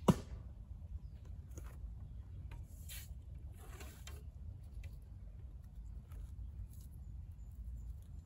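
A single sharp crack just after the start, then quiet arrow handling with a Manchu bow: faint rustles and light clicks as the next arrow is drawn from the quiver and nocked, over a low steady rumble.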